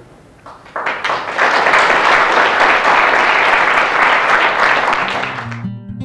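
Audience clapping for about five seconds, cut off near the end as strummed acoustic guitar music comes in.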